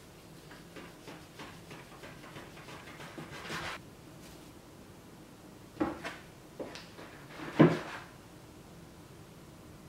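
Bread dough being divided with a plastic dough scraper on a wooden cutting board. A run of light taps gives way to a brief scrape, then a few sharp knocks, the loudest about three-quarters of the way through.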